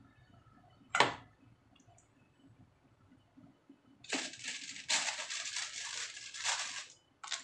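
Kitchen prep handling: a single sharp clack about a second in as ginger slices are set down in a ceramic bowl, then about three seconds of dry, crackly rustling as a hand works over the fish steaks.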